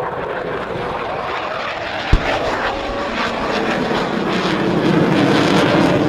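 Military aircraft flying past in an air display, a steady engine roar that grows louder toward the end. There is a single short thump about two seconds in.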